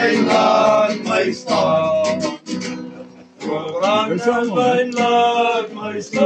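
Acoustic nylon-string guitar strummed while men sing along, with short breaks between sung phrases.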